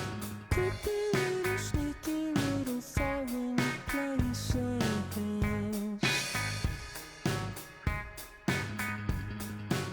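Background music: a funky guitar-led track with a melody stepping up and down over a steady drum beat.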